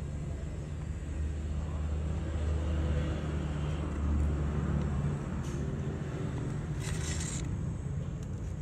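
A low, steady mechanical rumble, stronger through the first half and easing off about five seconds in, with a short burst of hiss near the end.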